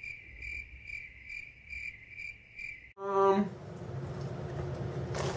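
Cricket-chirping sound effect: a high chirp pulsing evenly about two and a half times a second, cutting off abruptly about three seconds in. The crickets are the stock gag for an awkward silence.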